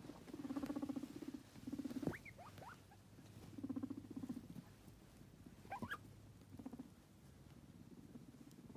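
Two guinea pig boars rumbling at each other in about five short bouts of low, fast-pulsed buzzing, with a brief sweeping squeak about two seconds in and another about six seconds in.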